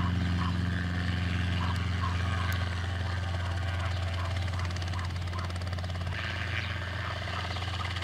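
Robinson R22 training helicopter hovering low: a steady low drone of rotor and piston engine, getting slightly quieter toward the end. A small dog yaps faintly and repeatedly in the background.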